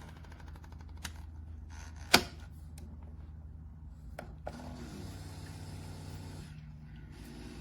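A few sharp plastic clicks and one loud snap from a Keurig K-Mini single-serve coffee maker being handled, then its pump starts up with a steady low hum about halfway through as it begins to brew.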